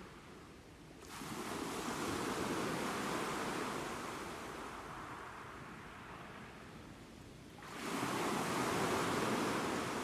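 Sea waves washing ashore. A surge swells about a second in and slowly ebbs away, then a second wave surges in near the end.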